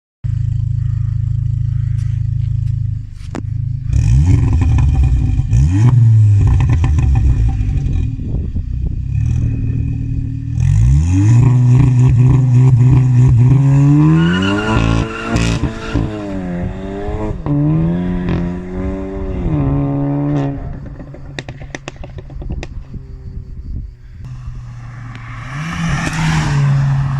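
2019 VW Golf 7.5 GTI Performance's turbocharged four-cylinder engine, heard through a straight-through Armytrix turboback exhaust with the particulate filter and catalytic converter removed, idling and being revved repeatedly in short blips and one longer run. Sharp pops and crackles come between the revs, from an ECU tune with burbles and crackles switched on.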